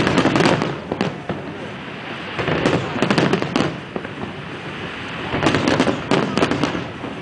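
Aerial fireworks going off in three waves of rapid bangs and crackles, a couple of seconds apart: near the start, about two and a half seconds in, and about five and a half seconds in.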